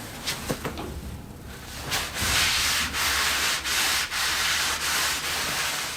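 A steady rubbing noise starting about two seconds in and lasting some three and a half seconds, broken by a few brief pauses.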